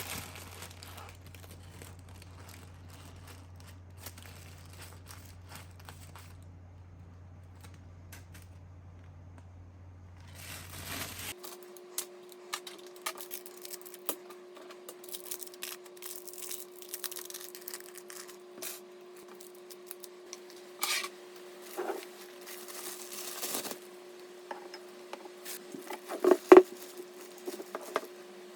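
Packaging and parts being handled: crinkling and tearing with scattered clicks, the sharpest about two seconds before the end. A steady low hum underneath stops abruptly about eleven seconds in and a steady higher tone takes its place.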